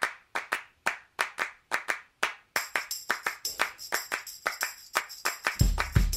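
Intro music opening with rhythmic hand claps: a sparse clap beat that fills out with more percussion about halfway through, with a deep beat coming in near the end.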